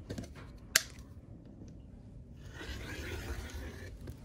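A rotary cutter sliding along an acrylic ruler and slicing through printed fabric on a cutting mat, a steady rasp for about two seconds starting around halfway in. A sharp tap about a second in as the cutter is picked up or the ruler handled.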